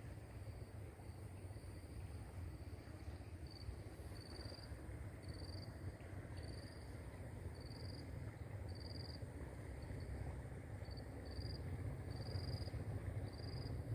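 Insects chirping in an even rhythm, short rising chirps about one and a half times a second, over a steady high-pitched buzz and a low rumble that gets slightly louder near the end.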